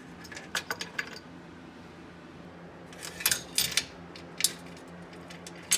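Metal clinking and rattling from a carriage bolt and hitch bracket being pulled on a fish wire through the inside of a steel truck frame rail: a few light clicks about half a second in, then a louder cluster of clinks about three seconds in and again at the end.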